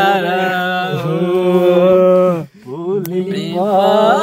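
A man's voice singing a long held note for about two seconds, then, after a brief break, a shorter phrase that rises and wavers.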